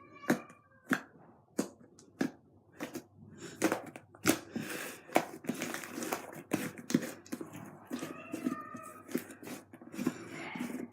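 Hands squeezing and stretching fluffy slime, giving irregular sticky pops and clicks.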